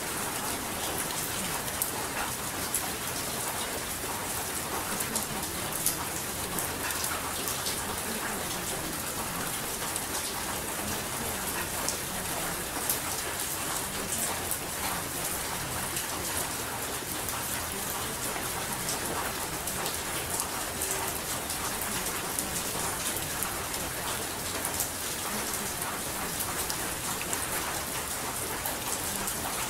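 Steady rain: an even hiss with many small scattered drop ticks, the kind of rain track used to mask subliminal affirmations.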